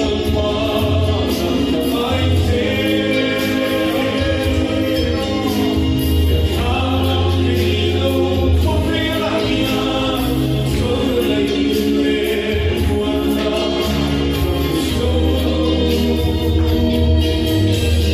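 A man sings a Mizo gospel song solo into a microphone, with amplified instrumental accompaniment under the voice.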